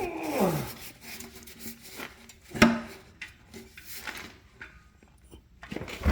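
A screwdriver scrapes and clanks against the snowmobile's muffler and exhaust springs as a spring is pried into place, with a sharp metal knock about two and a half seconds in.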